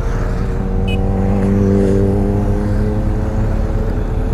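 A line of motorcycles riding past one after another, engines running. The nearest bike's engine note rises a little and is loudest about two seconds in.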